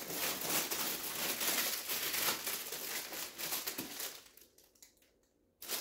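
Plastic packaging crinkling and rustling as a wrapped package is handled and opened by hand, stopping about four seconds in.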